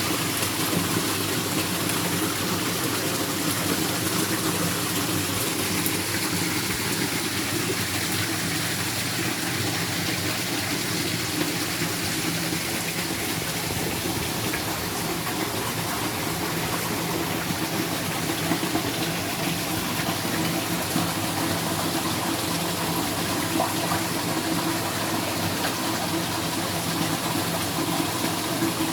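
Steady rushing water, even and unbroken throughout, with a low steady hum beneath it.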